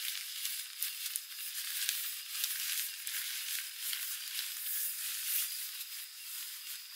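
Nylon tent fabric rustling and crinkling as a person pushes through the tent door and climbs out, with many small crackles over a steady high hiss.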